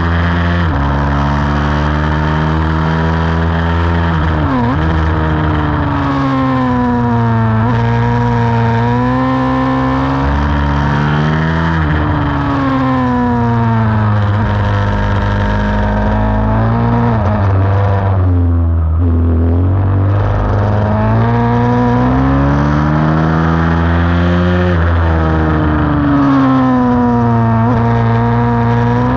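YCF pit bike's 190 cc Daytona single-cylinder four-stroke engine heard close up from on the bike, revving up and dropping back again and again as it is ridden hard around a track. About two-thirds through, the revs fall low before climbing again.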